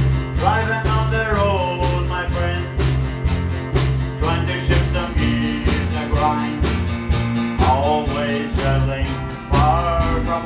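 A small band playing a country song: a drum kit keeping a steady beat under electric bass, guitars and keyboard, with a melody line that bends in pitch.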